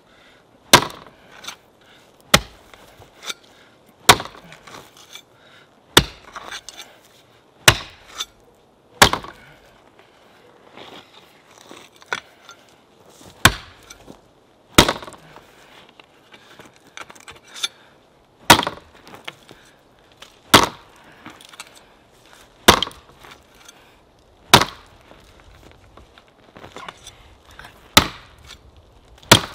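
A long-handled digging tool striking into the ground again and again, a sharp hit every one to two seconds at an uneven pace, as the ground is dug out.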